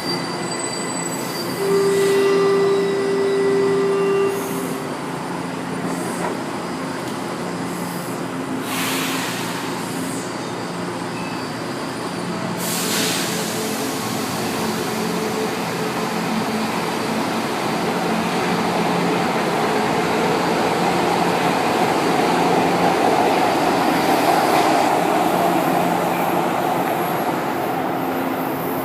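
São Paulo Metro train at a platform. A loud steady tone lasts about two and a half seconds near the start, there are two short bursts of hiss, and then the train's running noise swells and fades as it moves through the station.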